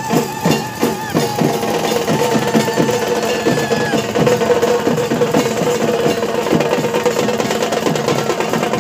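Music carried by fast, even drumming, a few strokes a second, each stroke dropping in pitch, over steady held tones.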